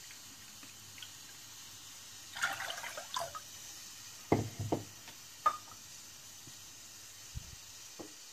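Water poured from a stainless steel measuring cup into a saucepan of fish sauce mixture, splashing in two short pours about two and a half and four and a half seconds in. A few faint knocks follow.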